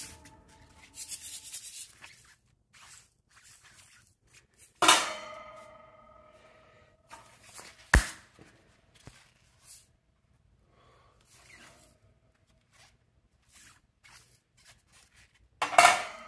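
Handling of a cut-open metal Dos Equis mini can and the CO2 cartridge taken from it: light scrapes and rubbing, with a ringing metallic clang about five seconds in, a sharp knock about eight seconds in, and another ringing clang near the end.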